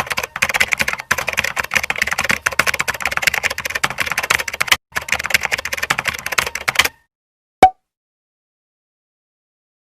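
Rapid computer-keyboard typing, dense runs of key clicks with a brief pause about five seconds in, stopping about seven seconds in. A single sharp click follows a little later.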